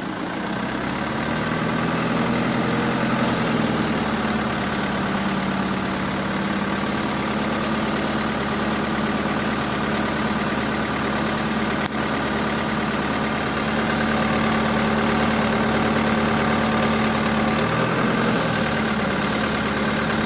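Engine of a street-lighting maintenance truck idling steadily, with a constant hum.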